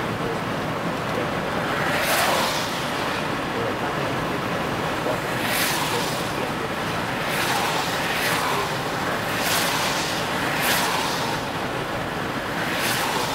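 Steady road and engine noise inside a car driving on a wet road in the rain. About seven short swishes rise and fall through it, every second or two.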